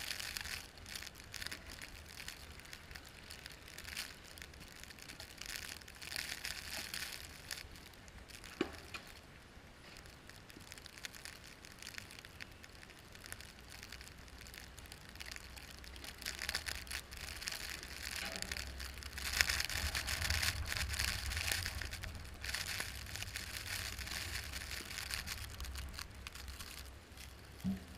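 Vehicle tyres crunching through snow in irregular crackly patches, over a steady low engine and road hum.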